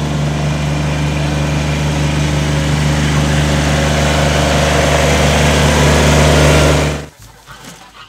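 Compact tractor's engine running at a steady speed as it drives up close, growing louder as it nears, then cutting off suddenly about seven seconds in.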